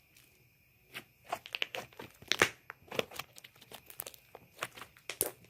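Cloud slime being squished and stretched by hand: a run of irregular crackles and pops that starts about a second in, the loudest about halfway through.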